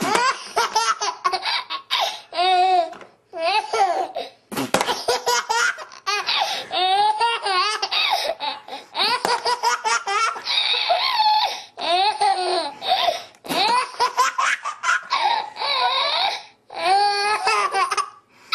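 A baby laughing in repeated fits, each fit a run of quick pitched pulses, with brief pauses between them.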